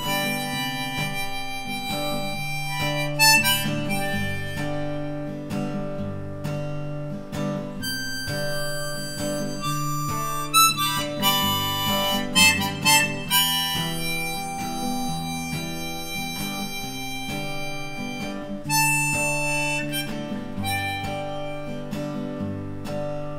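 Harmonica solo with long held notes, played over acoustic guitar accompaniment.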